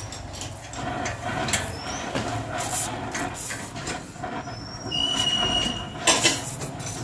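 Sheet metal being handled and fitted on a car body: irregular metal clanks and scraping, with short high squeals and one steadier squeal about five seconds in.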